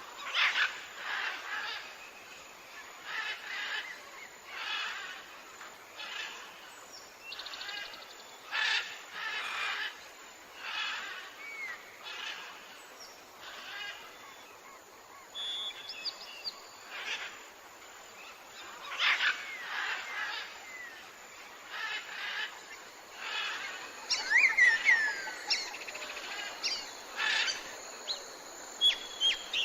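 Birds calling: a string of short, rough calls about once a second, with thin whistled chirps in between and a burst of sweeping whistles about three-quarters of the way through.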